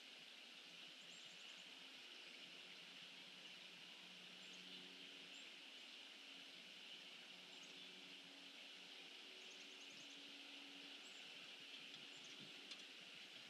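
Quiet outdoor ambience: a steady hiss with a few faint, high bird chirps, including two short rapid trills, one about a second in and one about nine seconds in.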